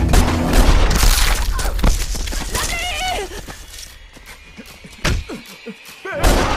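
Film gunfight sound effects: pistol shots and bullet impacts with shattering, crumbling debris over dramatic background music. The dense mix thins out past the middle, broken by a couple of sharp bangs near the end.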